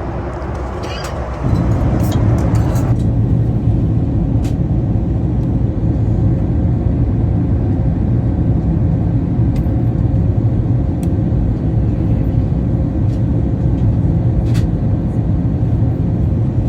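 Steady low engine rumble heard from inside an airliner cabin, stepping up in level about a second and a half in, with a faint steady hum above it.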